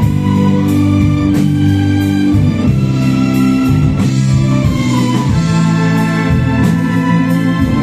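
Orchestra strings, violins and cellos, bowing sustained chords over a strong low line, the harmony changing about every second or so.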